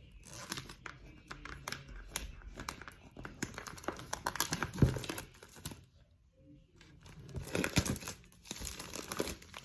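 Plastic wrapping crinkling and tearing in quick irregular crackles as it is pulled off a boxed tarot deck, with a brief pause about six seconds in.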